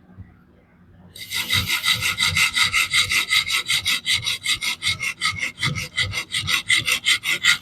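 Coarse reprofiling stone on a fixed-angle knife sharpener grinding the edge of a DC53 steel blade, in quick, even back-and-forth strokes that start about a second in. Heavy pressure is being used to strip steel and set a new bevel.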